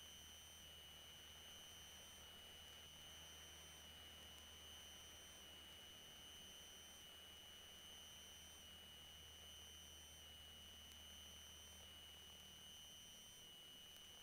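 Near silence: only a faint steady high-pitched tone and a low hum, the electrical noise floor of the recording line.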